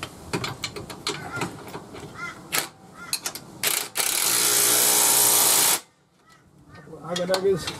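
Metal clicks and rattles of a socket and tool being fitted onto a suspension bolt. About four seconds in, an AEG cordless impact wrench runs hard for nearly two seconds on the lower control arm bolt, then stops abruptly.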